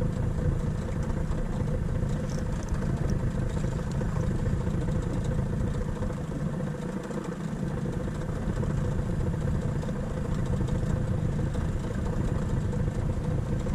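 Outboard motor of a small aluminium boat running steadily at low speed.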